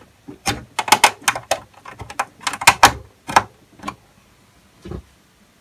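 An HDMI cable being pulled out of and pushed back into the rear socket of an AV receiver, to make it resync to the input: a quick run of sharp plastic-and-metal clicks and rattles for about three and a half seconds, then one more knock near the end.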